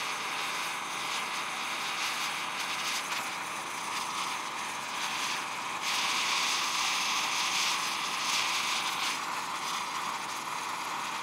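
Two gas torch flames hissing steadily as they heat a brass box to solder its hinge barrel pieces, a little louder for a few seconds past the middle.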